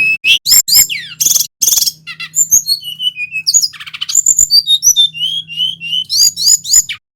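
Male sikatan rimba dada coklat (brown-chested jungle flycatcher) singing a rapid, varied song of high whistles, short trills and rising and falling glides, in full loud song. The song cuts off abruptly near the end.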